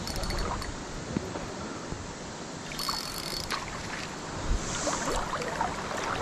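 Water sloshing and lapping, with a few faint clicks and ticks.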